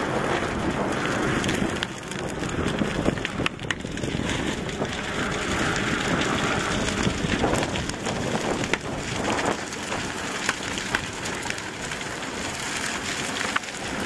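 A wooden house on stilts burning: many small crackles and pops over a steady rushing noise.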